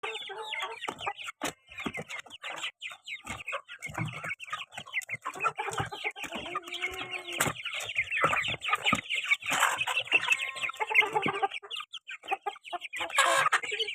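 Domestic chickens clucking, several birds calling over one another in a dense, continuous chatter.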